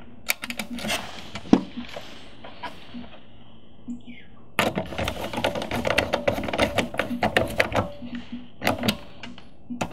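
Small clicks as wire ends are handled and pushed into a barrier-style screw terminal strip, then a few seconds of dense metallic clicking and scraping from about halfway through, as a screwdriver turns a terminal screw down onto the wire.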